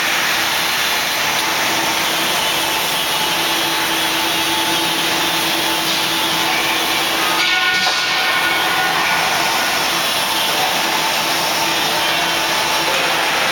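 Plate leveling machine running steadily: a loud, even machine noise with a steady low hum, changing briefly about halfway through.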